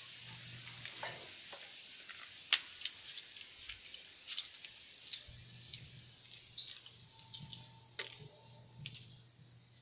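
Thin plastic bag crinkling as hands pick ingredients out of it: a run of irregular sharp crackles and clicks over a faint hiss.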